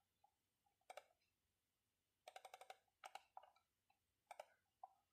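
Near silence broken by faint, scattered clicks of a computer being operated: two about a second in, a quick run of about five near the middle, then a few single clicks.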